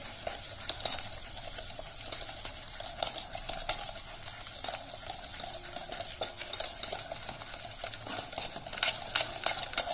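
Metal wire whisk beating ghee and powdered sugar in a bowl: rapid, irregular clicks and scrapes of the wires against the bowl, creaming the two together. A few sharper clicks come about nine seconds in.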